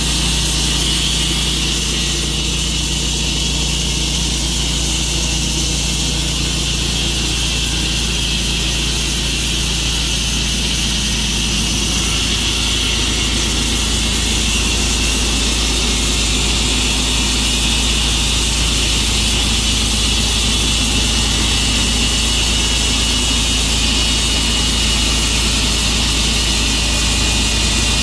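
Engine of a Tru-Cut sawmill running steadily while its blade cuts through a maple log.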